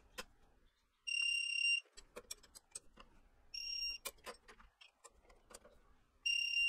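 Digital torque wrench beeping three times, each beep about two-thirds of a second long, as each of the chuck's three 10 mm mounting bolts is brought to the set 50 ft-lb; faint ratchet clicks from the wrench between beeps.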